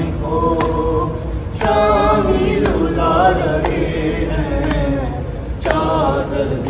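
A noha (mourning lament) chanted by voice, with sharp chest-beating (matam) strokes keeping time about once a second.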